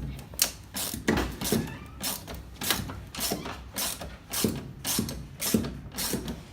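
Rhythmic mechanical clicking with dull knocks, about two or three a second, from hand work on a top-load washing machine's mechanism.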